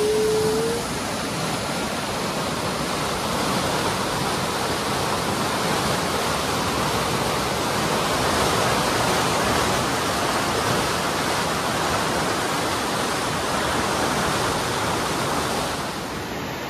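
River running high and fast with the rainy season, a steady rush of water pouring through its rock pools and canyons. It drops a little in level near the end.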